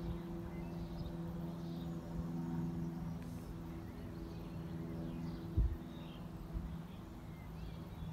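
A steady low engine hum, with faint birds chirping now and then and a brief thump a little over halfway through.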